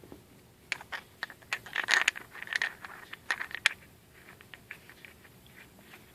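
Small metal pipe fittings, a galvanized pipe union and nipple with a brass sensor probe, clinking and scraping as they are handled, a quick run of sharp clicks in the first few seconds, then fainter ticks.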